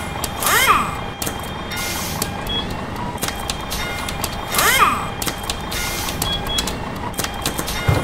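Sample-based music track built from recorded everyday sounds: a steady rhythm of short clicks and taps, with a falling, swooping tone that comes back about every four seconds.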